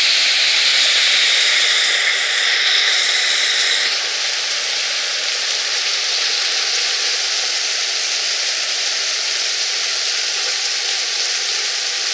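Heavy hailstorm: dense hail and rain pelting down in a loud, steady hiss, a little louder over the first four seconds.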